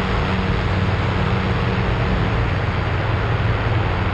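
Airtime Cygnet amphibious trike in flight: its pusher engine and propeller give a steady drone, under a heavy rush of wind on the microphone.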